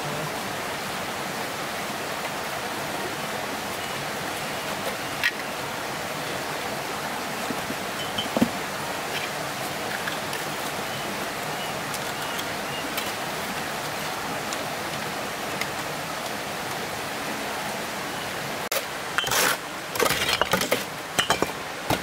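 Steady rush of flowing water, with a few clinks and knocks near the end.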